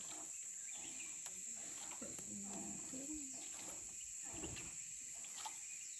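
Steady, high-pitched drone of insects singing in the riverside vegetation, with faint voices in the background.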